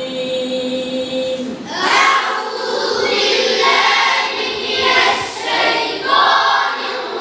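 A class reciting the Quran in chorus, chanted in unison. A single held note opens it, and many voices come in together about two seconds in, rising and falling in chanted phrases.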